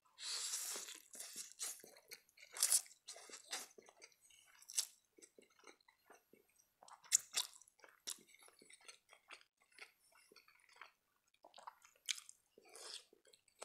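Close-miked eating sounds: about a second of slurping spaghetti strands at the start, then wet chewing with many short clicks and smacks. Near the end comes a bite and crunch into a carrot slice.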